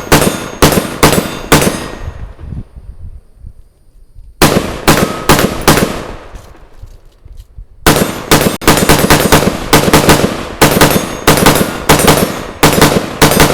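Semi-automatic rifle with a Rise Armament trigger fired rapidly in three strings: a quick run of about five shots, a pause, about five more, then a longer fast string of shots, roughly three or four a second, each shot followed by a short ring-off.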